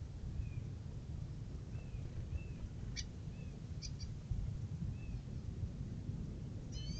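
Birds calling: a string of short, slightly falling chirps and a couple of sharp calls, then a louder call with several layered tones near the end, over a steady low rumble.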